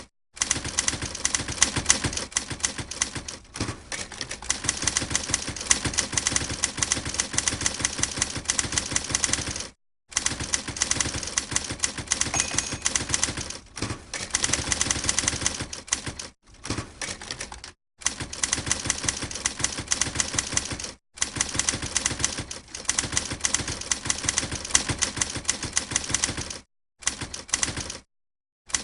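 Typewriter being typed on: a quick, continuous run of key strikes in long stretches, stopping dead several times for a moment before resuming.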